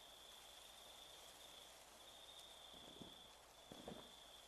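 Near silence, with faint insects trilling steadily in the background and a couple of faint soft sounds about three and four seconds in.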